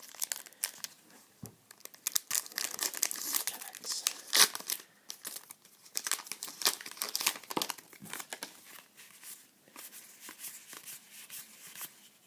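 Trading-card pack wrappers being torn open and crinkled by hand, a dense run of crackling rustles with one sharp loud crackle near the middle, quieter and sparser toward the end.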